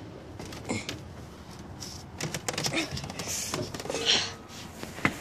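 Scuffs, knocks and rustling as someone climbs up metal diamond-plate steps into a truck cab, with handling noise on the phone.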